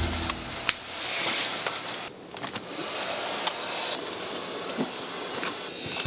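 Hard plastic hair dryer housing parts being handled and fitted together by hand, with a few sharp plastic clicks, over steady factory room noise.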